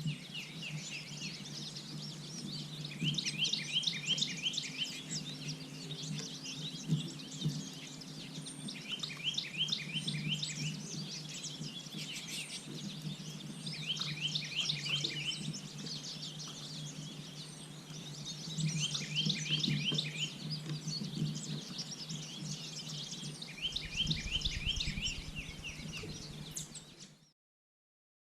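A songbird singing a fast run of rapid repeated notes six times, each phrase lasting a second or two, with a low steady hum underneath. The sound cuts off near the end.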